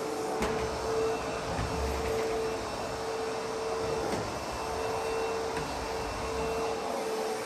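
ProTeam MegaVac backpack vacuum running: a steady motor whine over rushing air, with a couple of faint clicks.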